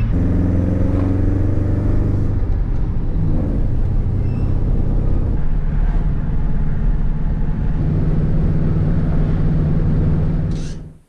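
Pickup truck driving on the road: the engine note rises as it pulls away over the first couple of seconds, then settles into a steady cruising drone with road noise, fading out near the end.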